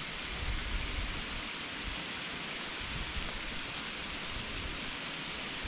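Steady hiss of water, like rain or a rushing stream, even and unbroken, with a low fluttering rumble underneath.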